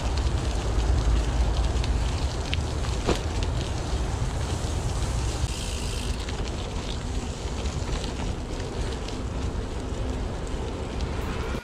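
Merida Silex gravel bike's tyres crunching and crackling over a loose gravel track, with wind buffeting the microphone as a low rumble and one sharper tick about three seconds in.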